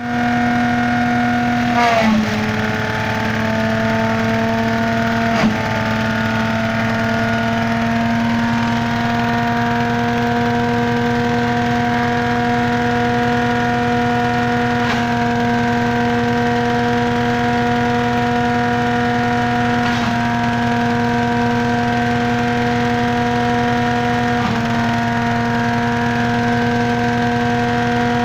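Mahindra Yuvraj 215 mini tractor's single-cylinder diesel engine running at steady high speed, driving a rear-mounted shredder. Its pitch dips sharply with a knock about two seconds in and again about five seconds in, as if under sudden load, then climbs back over the next few seconds. A few smaller dips come later.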